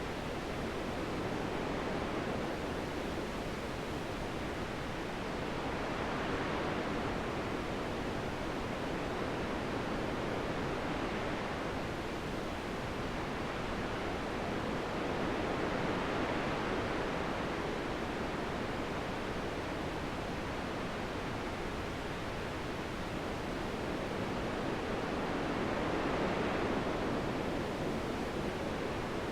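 Steady wind noise that swells in slow gusts about every ten seconds, roughly a third of the way in, two thirds of the way in, and near the end.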